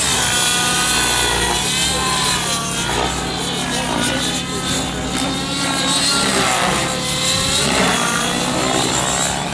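Nitro-powered RC model helicopter's two-stroke glow engine and rotors whining in flight, the pitch rising and falling again and again as the engine and blades are worked through manoeuvres.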